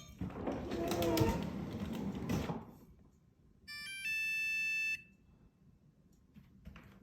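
Maytag MFT2574DEM01 refrigerator's electronic control beeping: a quick run of short tones, then one steady beep about a second long. This is the beep it gives on booting up, which keeps repeating when the fridge is not cooling. Before it come a couple of seconds of loud, noisy sound.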